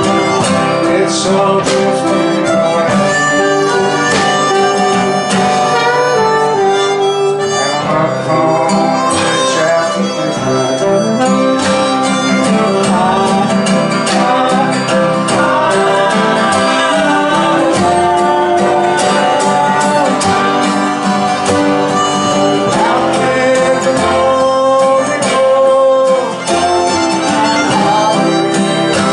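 Live blues band playing: a harmonica, cupped in the hands against a vocal mic, plays sustained, bending blues lines over strummed acoustic guitars and an upright bass.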